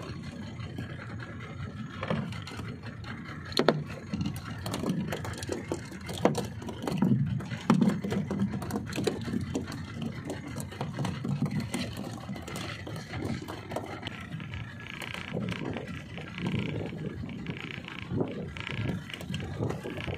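Irregular rumble of wind and choppy water around a small open fishing boat, with a few sharp knocks, the loudest about 3.5 and 7.5 seconds in.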